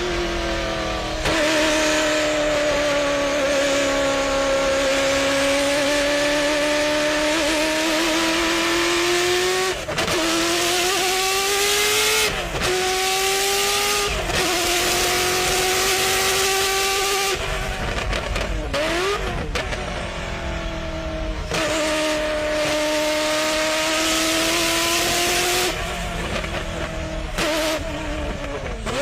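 Ferrari F40 LM's twin-turbo V8 running hard under load, holding long pulls with slowly changing pitch. It is broken by several short breaks where the driver shifts gear or lifts off, with a quieter spell of falling and rising revs partway through.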